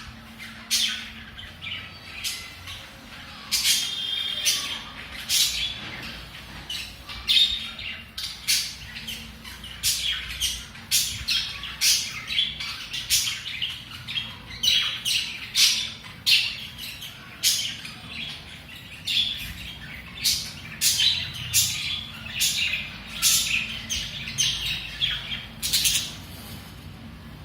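Budgerigars chirping and squawking in short, sharp calls, one or two a second, which stop shortly before the end.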